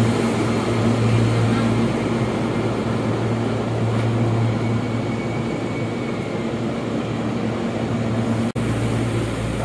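Keihan 10000 series electric train standing at the platform, its onboard equipment giving a steady low hum with no change in pitch. The sound drops out briefly near the end.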